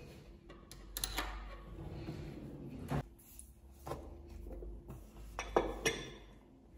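Kitchen handling sounds: cutlery clinking in a drawer, a fork set down on a ceramic plate, and a plastic container of muesli knocked down against the plate, heard as a handful of separate clinks and knocks.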